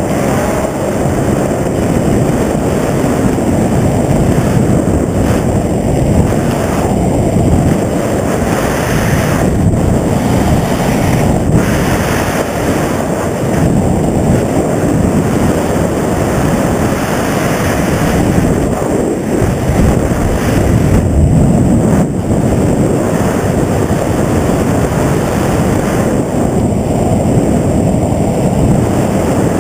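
Loud, steady wind buffeting the microphone over the running noise of a helicopter, a dense rush with no clear tone.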